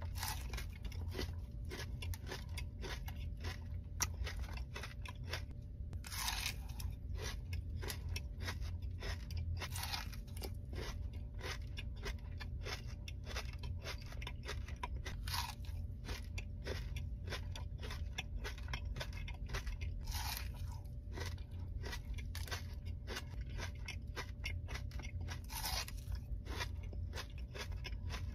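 Close-up mouth sounds of chewing a Dubai chocolate bar: milk chocolate filled with pistachio cream and crisp shredded kataifi pastry, crunching and crackling steadily, with a few louder crunches every few seconds.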